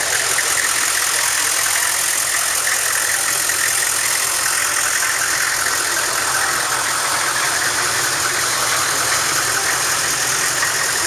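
A Hummer's engine idling steadily.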